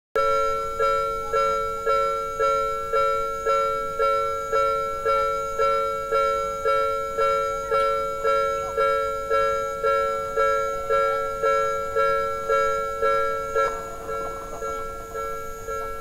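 Japanese railroad crossing warning bell ringing about twice a second, signalling that a train is approaching. About fourteen seconds in, as the barrier comes down, the strikes turn quieter.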